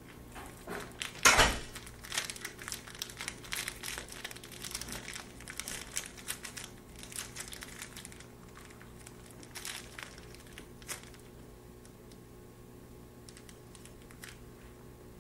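A plastic food wrapper crinkling and crackling as it is handled and pulled open, with one loud crackle about a second in and a busy run of crinkles that thins out and stops after about eleven seconds.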